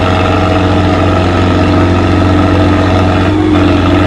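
Tractor diesel engine running loudly and steadily, with a deep low hum and a slight shift in pitch late on.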